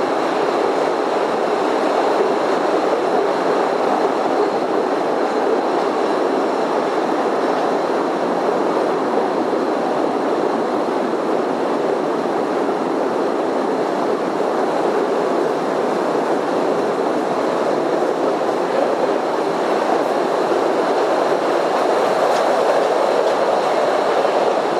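Cave tourist train running on its rails through the cave tunnels: a steady, unbroken running noise of the cars on the track.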